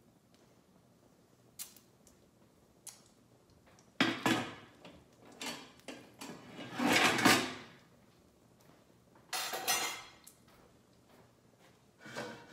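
Kitchen handling clatter: a metal baking pan and kitchenware being knocked and set down, with a drawer or cabinet worked, in several separate bursts. The longest and loudest comes about seven seconds in.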